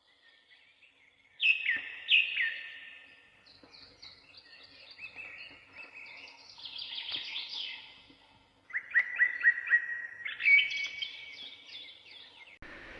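Songbirds singing and calling. Two loud falling whistled notes come early, then mixed chirping, then a quick run of repeated notes about nine seconds in.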